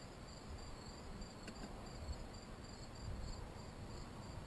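Faint, steady chirring of crickets in the background, over a low, even rumble.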